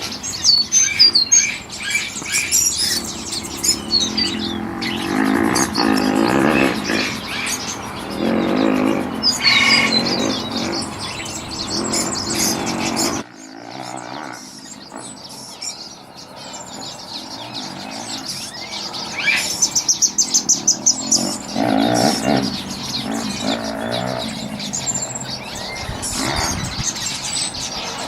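A mixed chorus of many birds chirping, trilling and calling together. The sound cuts abruptly about halfway through to a slightly quieter mix of chirps and calls.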